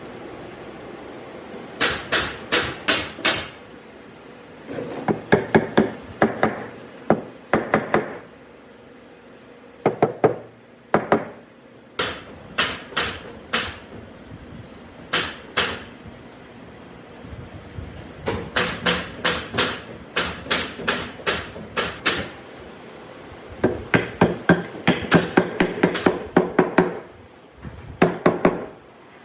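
Hammering in wood: quick runs of sharp blows, several strikes a second, broken by short pauses.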